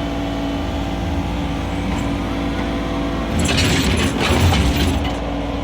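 Mini excavator engine running steadily, growing louder and rougher about three seconds in for a second or so before settling back.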